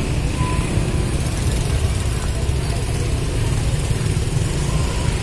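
Motor scooter, motorcycle and small pickup truck engines idling and creeping along in slow street traffic close by, a steady low engine rumble.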